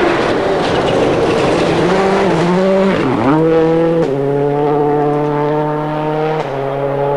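Rally car engine at high revs on a gravel special stage. The engine note dips and climbs again about three seconds in, runs steady, then steps down near the end, with the hiss of gravel under the tyres.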